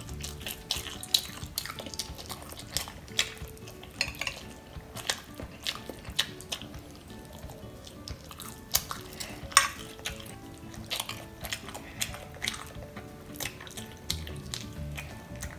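Close-up chewing and wet mouth sounds of eating pancit canton instant noodles and hot dog, with many irregular sharp smacks and clicks. Soft background music plays underneath.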